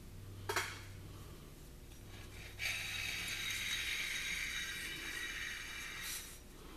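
A single sharp click, then, about two and a half seconds in, a steady hiss like a spray that runs for roughly four seconds and then stops.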